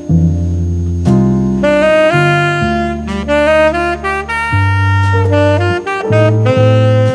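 Jazz music with a saxophone playing a melody of short and held notes over a walking bass line.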